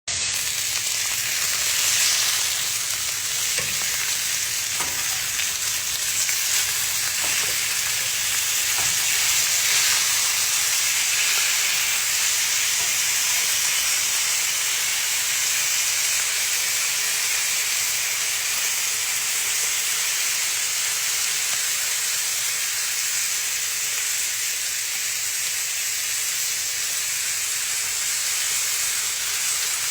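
Meat sizzling as it fries, a steady hiss with a few faint pops in the first ten seconds or so.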